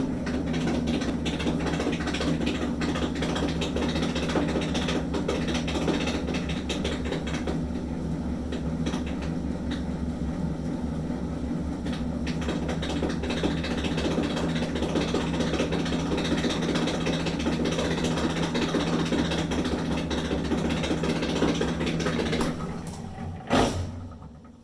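Maytag Dependable Care Quiet Plus II dryer running with a loud, continuous rattle, like a bunch of bolts shaking around in a can, over a steady motor hum. The cause is a worn blower wheel spinning loose on the motor shaft. About two seconds before the end the running stops and dies away, with a single knock as it fades.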